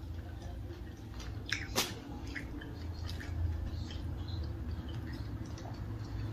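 Faint chewing and small wet mouth clicks from someone eating a taco close to the microphone, with one sharper click about two seconds in, over a low steady hum.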